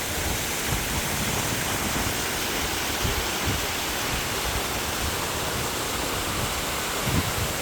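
Waterfall pouring into a lake: a steady, even rush of falling water.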